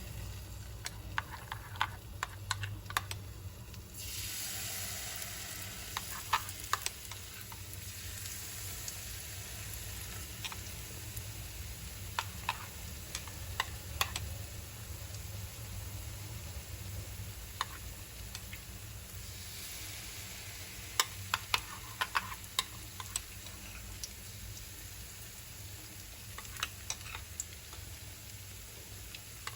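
Wheat flour, sugar and coconut milk mixture frying in oil: a steady sizzle that grows louder about four seconds in, with scattered sharp clicks and taps from stirring in the pan.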